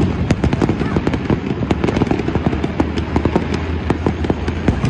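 Aerial fireworks going off in a dense, continuous barrage: rapid bangs of shells bursting, several a second, over a steady low rumble.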